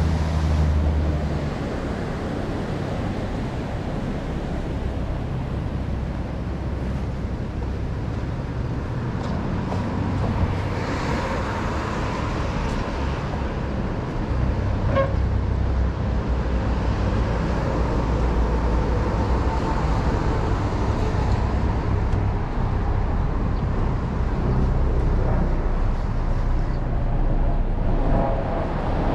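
Street traffic: cars passing on the road beside the sidewalk, a steady low rumble with one car going by more loudly about eleven seconds in. A short beep sounds about fifteen seconds in.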